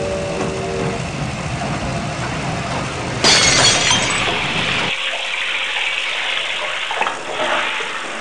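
Rushing noise with a sudden loud crash about three seconds in, after which the sound turns thinner and hissier, with a sharp click near the end.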